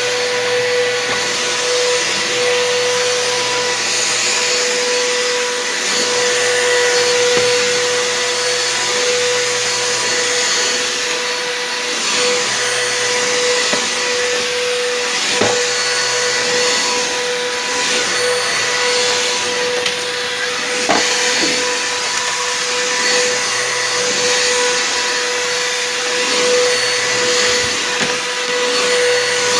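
Bissell PowerForce Helix upright vacuum cleaner running continuously with a steady whine, its loudness swelling and dipping a little. Two brief sharp clicks midway.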